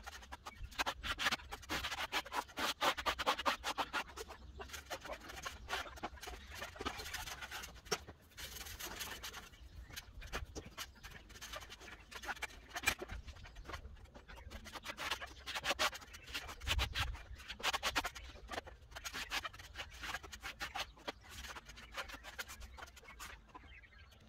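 Trowel scraping and spreading monocouche render over cement board and off the hawk, in runs of quick scraping strokes with short pauses between them.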